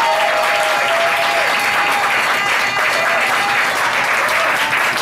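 Audience applauding steadily in a comedy club.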